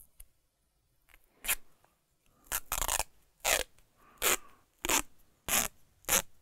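White athletic tape being pulled off its roll in a series of short, sharp rips, about seven pulls, the first about a second and a half in and then roughly every half second to second.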